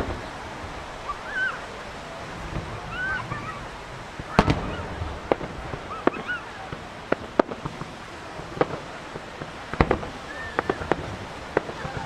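Aerial firework shells bursting in a scattered series of sharp bangs. The bangs come thicker in the second half, with the loudest about four seconds in and again near ten seconds.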